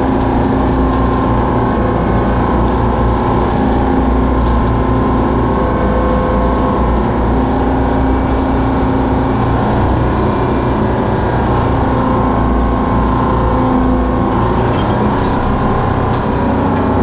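Koehring 440 dragline's engine running steadily under load, heard from inside the operator's cab, as the machine hoists the loaded bucket out of the water and swings it over to the stockpile.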